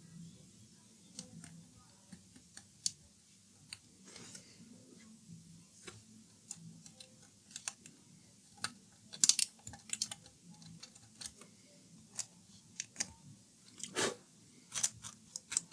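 Hobby knife blade scraping and clicking against the rivet heads of a freshly painted speaker basket, picking the black paint off them: faint, irregular small clicks and scratches, with louder flurries about nine seconds in and near the end.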